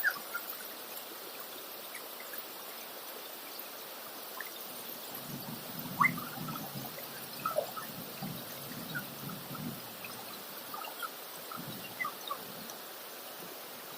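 Shallow river water trickling and babbling steadily, with small scattered splashes and drips.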